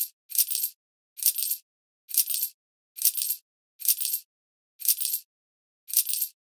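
Sound effects of a Microgaming Switch European Roulette computer game on sped-up playback: a short high-pitched burst roughly once a second, eight times, each with a quick double peak, like chips being laid on the table.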